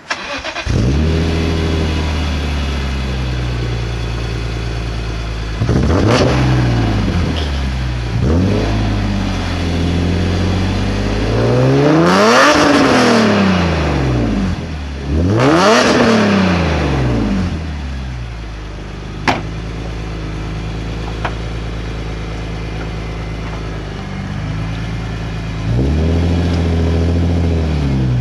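BMW E46 M3's 3.2-litre inline-six breathing through a Supersprint race exhaust, idling and being revved: a couple of short blips, then two big revs that climb and fall back to idle, and another rise near the end. A single sharp click is heard about two-thirds of the way through.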